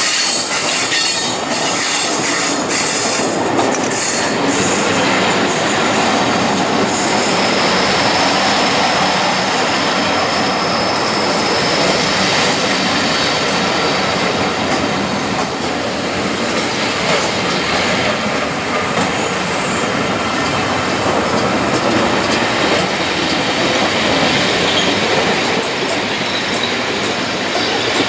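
A train running past on the rails: a steady, loud rush of wheel and track noise with a faint high wheel squeal.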